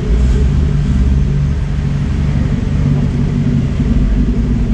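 Straight-piped Ford GT's supercharged V8 idling with a deep, steady rumble inside an underground parking garage.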